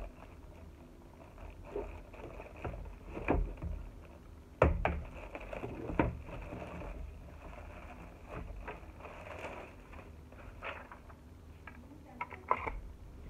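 Plastic packaging rustling and crinkling, broken by scattered knocks and clatters of hard plastic toy-arena parts being unpacked and handled; the loudest knock comes nearly five seconds in.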